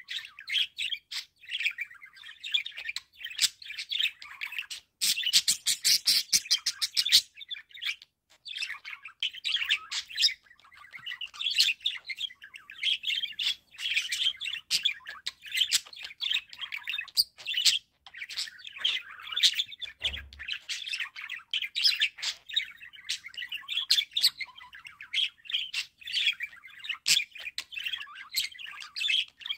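Budgerigars chattering and warbling in a near-continuous stream of fast chirps and squeaks, with a louder, harsher stretch of squawking about five to seven seconds in.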